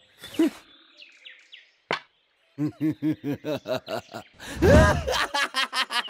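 A cartoon man laughing in quick, evenly spaced bursts of 'ha', with one louder swell in the middle, after a single sharp click.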